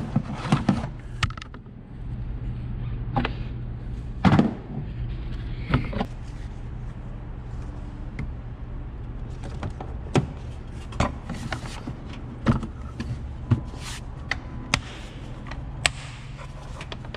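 Plastic knocks and clicks from a 2019 Honda Ridgeline's engine air filter housing as the filter is swapped and the airbox lid is set back in place and pressed down. The knocks are scattered irregularly, the loudest about four seconds in, over a steady low hum.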